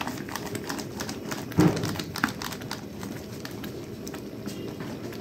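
Thick tomato-onion masala bubbling and spluttering in a large metal pot, a steady crackle of many small pops as the spices cook in. A dull thump about one and a half seconds in.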